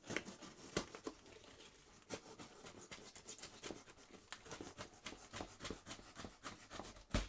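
Cardboard box and packing being handled and unpacked: irregular scratching, crinkling and small clicks, with a single louder knock near the end.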